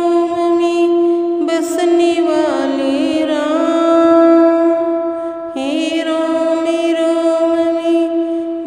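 A woman singing a Hindi devotional bhajan in long, drawn-out notes that slide slowly between pitches, taking up a new phrase about a second and a half in and again a little past the middle.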